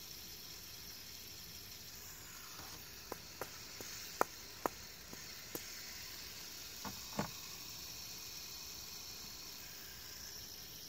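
Handling of a fidget spinner: about ten light clicks and taps over a few seconds, the loudest about four seconds in, over a steady hiss.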